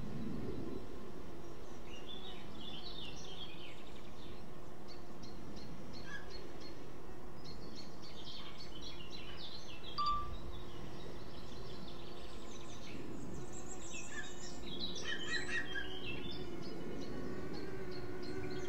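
Birds chirping and singing, many short high calls scattered throughout, over a steady low background noise.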